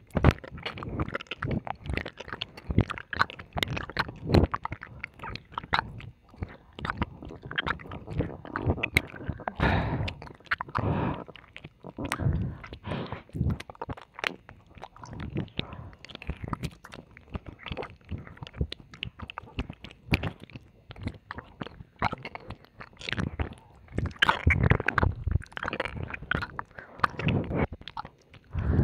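Close-up wet mouth sounds: licking, kissing and tongue clicks right against the microphone, an irregular stream of smacks with no words.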